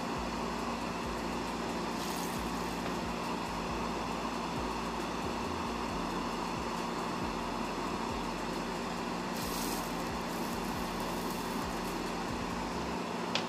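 Small CPU cooling fan of a homemade soldering smoke extractor running steadily, giving an even whir with a low hum, and a couple of brief hisses.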